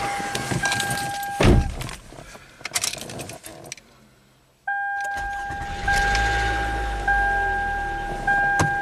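Inside a 2011 Toyota Camry, the driver's door shuts with a thump about a second and a half in, cutting off a dashboard warning chime, and keys click into the ignition. About five seconds in, the ignition comes on and a two-tone dash chime repeats about once a second, while the 2.5 four-cylinder engine starts with a low rumble underneath.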